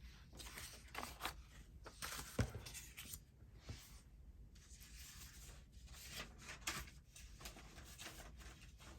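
Faint rustling and shuffling of sheets of printed paper as they are handled and sorted, with one light knock about two and a half seconds in.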